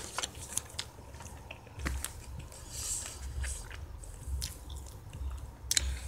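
A person chewing a crunchy snack close to the microphone, with scattered sharp crunches and clicks and, from about two seconds in, repeated dull low thuds.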